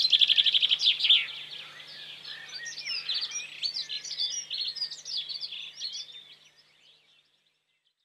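Songbirds singing: a fast trill of rapidly repeated notes in the first second or so, then varied chirps and warbles that fade out about seven seconds in.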